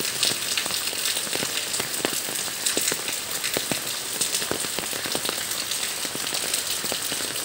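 Steady rain falling, a constant hiss with many separate drop impacts ticking through it.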